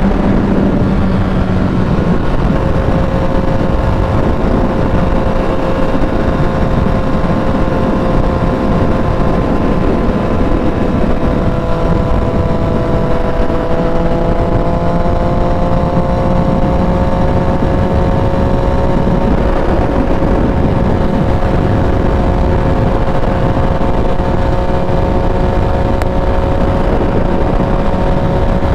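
Yamaha FZ-09's three-cylinder engine running at a steady cruise, its pitch dropping a little about two seconds in and rising slowly through the middle, under a constant rush of wind and road noise.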